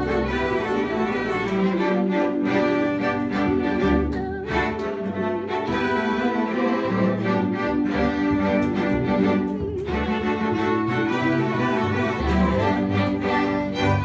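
Small string ensemble of violins, a cello and a double bass playing a piece together, with long held bowed notes and chord changes.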